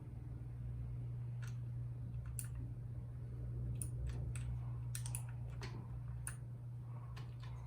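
Keys of a RAKK Lam Ang Pro mechanical keyboard with bronze switches being pressed, giving scattered sharp clicks at an irregular pace, over a steady low hum.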